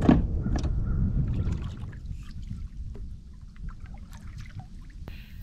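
Kayak paddle working the water: the blade dipping and water trickling off it, with a few light knocks. A low rumble fades away over the first two seconds.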